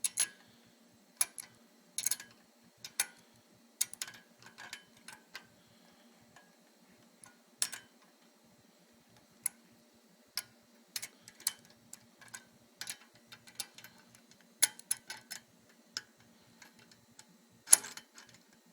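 Sharp metal clicks and clinks at irregular spacing from a crescent wrench working a bicycle headset nut as it is tightened, the wrench jaws knocking and slipping on the nut between turns. A faint steady hum runs underneath.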